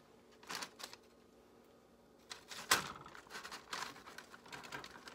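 A silicone chocolate mold being bent and handled to pop out set chocolate pieces: a couple of soft rustles about half a second in, then from a little after two seconds an irregular run of crackly rustles and clicks, the loudest near three seconds.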